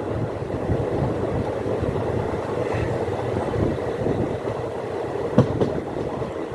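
Express passenger train running along the track: a steady rumble with wheels clattering over the rails, and two sharp clacks in quick succession about five and a half seconds in.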